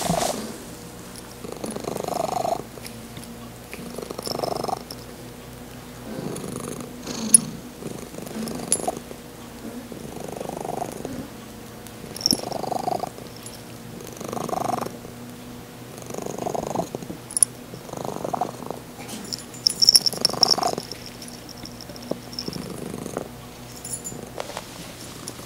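Domestic cat purring while being stroked, in a weird high-pitched purr in place of her usual low one, swelling and fading about every two seconds with her breathing. A few short high clicks sound over it, the loudest about twenty seconds in.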